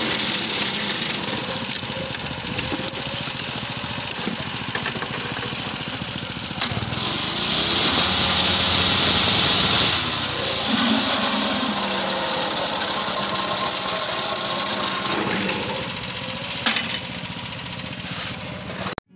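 Small single-cylinder engine of a mobile concrete block-making machine running steadily, with the machine's clatter and rattle; it grows louder for a few seconds in the middle and there are a few sharp knocks near the end.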